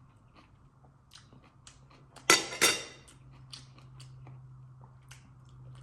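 A metal spoon clinks sharply twice against a dish about two seconds in, amid faint small clicks of eating, with a low steady hum after.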